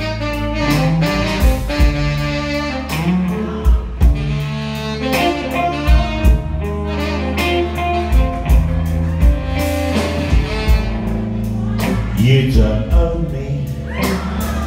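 Live band music: a saxophone plays long, sustained lines over electric guitar, bass and drums keeping a steady beat.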